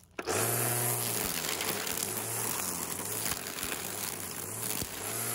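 Ryobi 24-volt cordless string trimmer running on an underpowered 18-volt Ridgid battery, its electric motor whirring as the spinning line cuts through weeds. The sound starts suddenly just after the beginning, and its low hum swells and eases about once a second.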